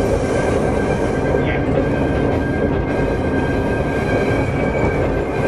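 Cab sound of a DSB MY-class (NOHAB-built General Motors) diesel-electric locomotive under way: its EMD 567 two-stroke diesel running steadily under the rumble of the wheels on the rails. A faint high wheel squeal on the curve runs under it, with a short squeak about a second and a half in.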